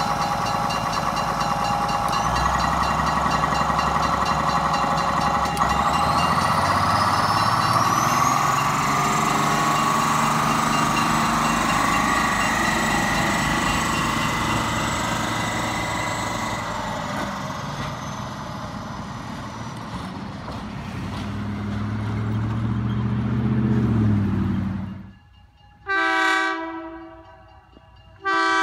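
Budd rail diesel car running close by, its diesel engine loud with a note that rises for a few seconds. It cuts off abruptly, then the railcar's air horn sounds twice from further off, a short blast and then a second that is still sounding at the end.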